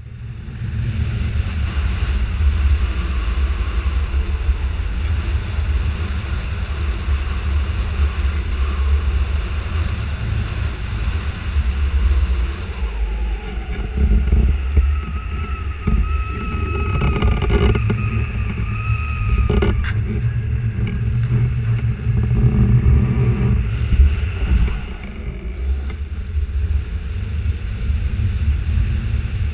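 Wind rushing over the microphone of a wing-mounted camera on a hang glider in flight: a loud low rumble that swells and eases without a break. A thin steady whistling tone joins it for several seconds about halfway through.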